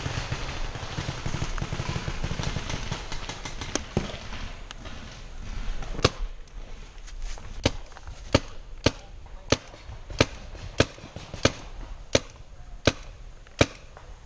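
Paintball marker firing a steady string of about a dozen sharp pops, roughly one every two-thirds of a second, in the second half. Before that, rustling and footsteps in dry leaves as the player moves up to cover.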